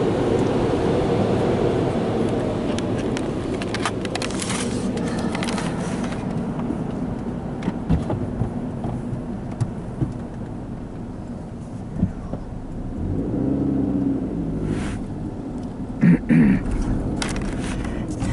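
Low, steady rumble of a car heard from inside its cabin just after an automatic car wash, easing off over the first few seconds and swelling again later. Scattered short clicks run through it.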